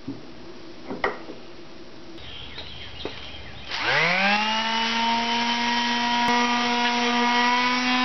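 Electric palm sander starting up about halfway through, its motor whine rising to speed within half a second and then running steadily as it sands pine fence-board parts. Before it starts there are only a couple of faint clicks.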